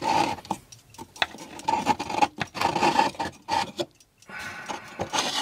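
A wooden block scraping and rubbing against the inside of an old wooden clock case as it is worked loose by hand, in irregular scrapes with several sharp knocks and clicks.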